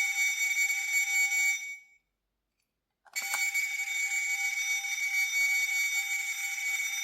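Miniature fire-alarm button capsule toy playing a fire-bell alarm, a steady shrill electric-bell ringing. It cuts off a little under two seconds in and, after about a second of silence, starts again with a click.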